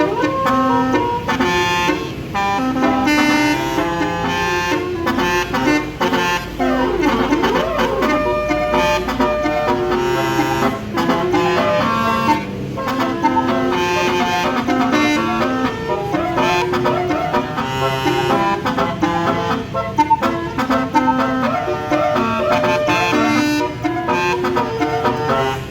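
Tour bus's basuri musical horn, roof-mounted trumpet horns playing a continuous melody of stepping notes, with a few sliding notes about six to nine seconds in.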